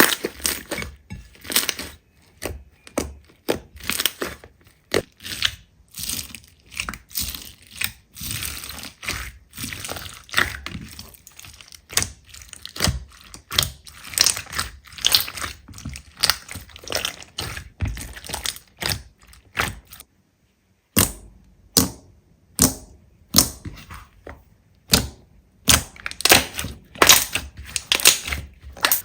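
Slime being squeezed, pressed and poked by hand, giving a fast, irregular run of sticky pops and crackling clicks, broken by about a second of silence around two-thirds of the way through.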